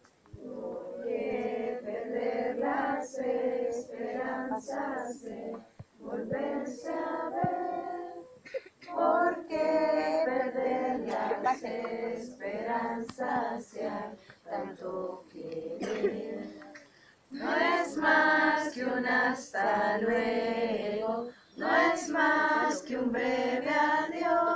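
A group of Girl Guides and their leaders singing together unaccompanied, in phrases with short breaks between them.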